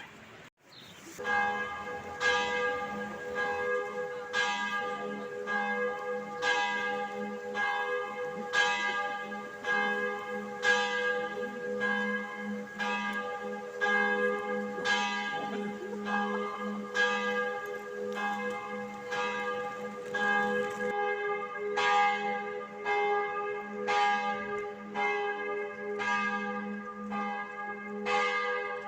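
Church bells ringing: regular strikes about once a second over a steady, lingering hum, starting about a second in.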